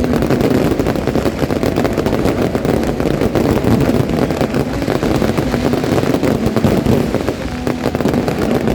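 Fireworks going off in a dense, continuous barrage of rapid crackling and popping.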